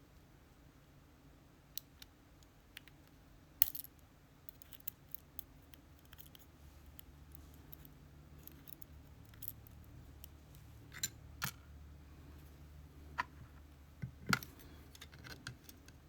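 Small metal parts of an Abus C83 lock being handled while it is taken apart: scattered light metallic clicks and taps, with a sharper click about four seconds in and another near the end.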